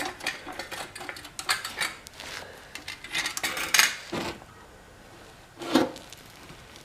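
Metal objects clinking and scraping against each other: a run of quick clinks and rubs over the first four seconds, then one more knock near the end.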